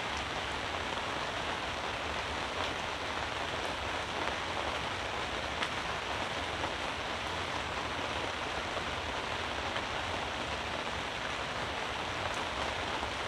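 Steady rain falling on a fabric canopy tent: an even hiss with a few faint drop ticks.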